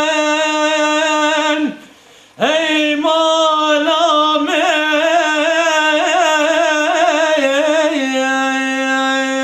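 A dengbêj, a Kurdish traditional singer, singing a Kurdish song solo: a long held note with vibrato that falls away, a breath about two seconds in, then a new phrase that scoops up and winds through ornamented turns before settling on another long, steady held note near the end.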